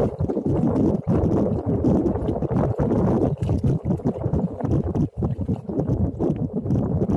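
Wind buffeting the microphone in a steady low rumble, with shallow water sloshing as a woven fish trap is lifted and handled in it.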